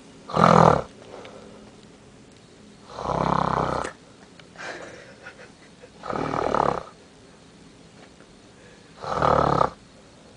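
A young woman snoring loudly and rhythmically, with four rough snores about three seconds apart and fainter breathing between them.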